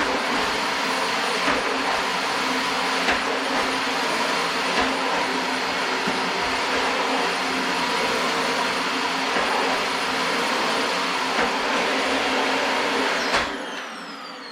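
Dyson DC25 Animal upright vacuum running steadily with a high whine, with occasional short ticks. About thirteen seconds in it is switched off, and the motor's pitch falls as it spins down.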